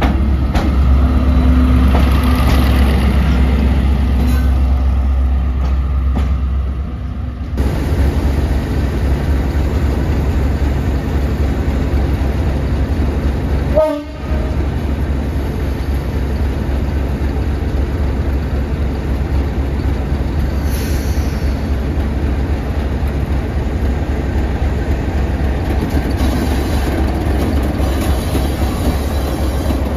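Diesel locomotive running under power with a heavy, steady low rumble. The sound changes abruptly about a quarter of the way through, and there is a brief break with a short pitched sound near the middle.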